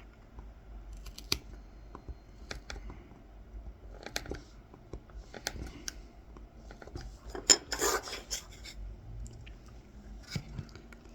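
Kolrosing knife cutting fine lines into the wooden handle of a coffee scoop: a string of short scratchy cuts and small clicks, the loudest about eight seconds in.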